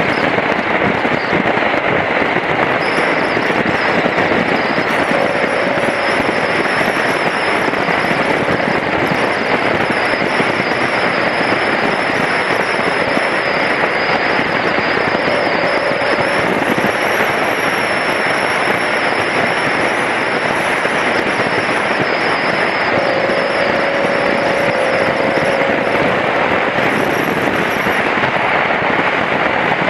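Steady wind rush buffeting the microphone of a camera on a moving BMW F700GS motorcycle, with the bike's engine and road noise underneath.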